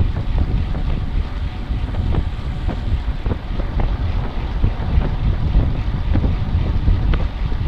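Wind buffeting the microphone: a loud, low rumble that rises and falls in gusts.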